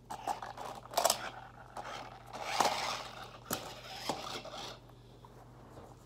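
A few sharp plastic clicks and scraping rustles from a toy remote-control car and its controller being handled, growing quieter about five seconds in.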